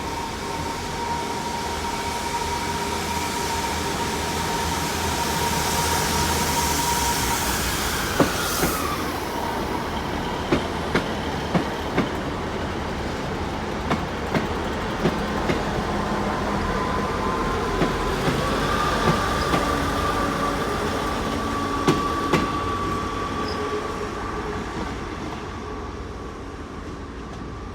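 Class 158 and class 150 diesel multiple units pulling out together, their engines and transmissions running with a held whining tone that drops in pitch partway through and rises again later. A series of sharp clicks runs through the middle.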